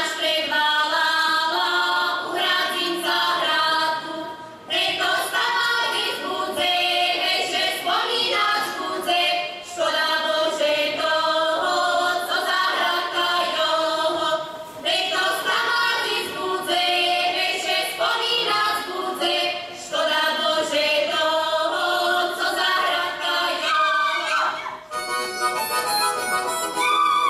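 A group of young women singing a Slovak folk song together, in phrases of about five seconds with short breaks between them, over a reedy instrumental backing. Near the end the band's instrumental music takes over.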